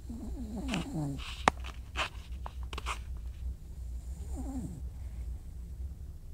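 Sleeping dog snoring: a low, steady rattling rumble, with falling whistle-like tones on the breaths near the start and again about two-thirds through, and a few short noisy breaths. One sharp click about a second and a half in.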